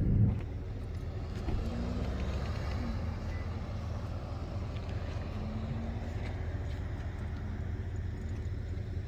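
A steady low rumble. A louder rumble cuts off just after the start, leaving a quieter, even rumble.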